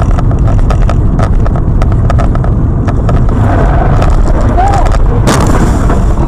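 Car cabin noise recorded by a dashcam while driving: a loud, steady low rumble of road and engine with frequent sharp clicks and knocks. A brief harsh burst of noise comes about five seconds in.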